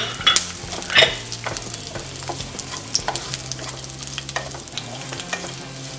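Chopped onion sizzling as it fries in a little oil in a kadhai, stirred around the pan with a spatula, with sharp scrapes and knocks of the spatula on the pan, most of them in the first second and a half.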